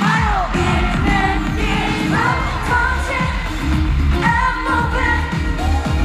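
A live K-pop song played over a concert sound system: a woman singing over a backing track with a heavy bass beat. The full beat comes in right at the start.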